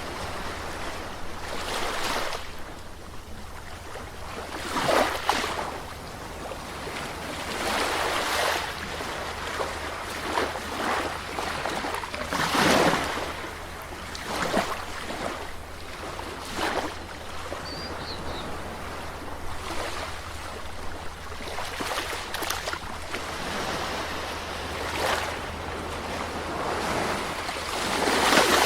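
Calm sea waves breaking and washing up on the shore in irregular surges every few seconds, with the biggest swells about a third of the way in and again near the end.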